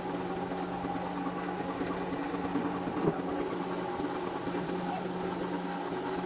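Homemade high-pressure sprayer built on a car AC compressor running with a steady hum, with a brief knock about three seconds in.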